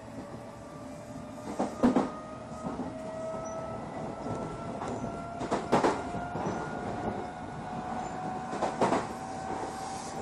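Odakyu 8000 series train with a SiC-VVVF inverter, heard from on board: the traction motor and inverter whine rises slowly in pitch as the train picks up speed. Over the rumble of the running gear, three loud double clacks come a few seconds apart as the wheelsets cross rail joints.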